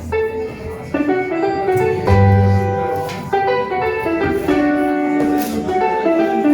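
Instrumental music on a keyboard, chords and a melody of bright, bell-like notes over a bass line.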